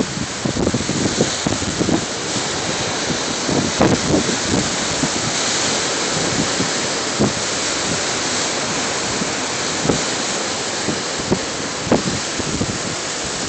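Ocean surf breaking and washing along a beach: a steady rush of waves. Irregular gusts of wind buffet the microphone, with a few sharper thumps about 4 s, 10 s and 12 s in.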